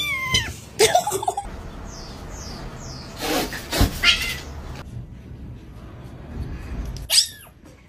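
Cats meowing: several short calls that bend in pitch, the first falling away at the start and others around one, four and seven seconds in, between abrupt changes in background noise.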